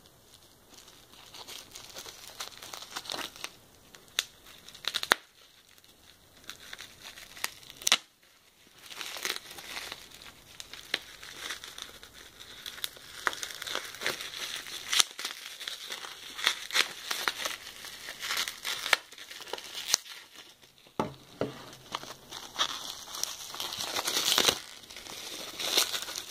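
Plastic bubble-wrap packaging being unwrapped by hand: irregular crinkling and crackling with a few louder snaps and short pauses.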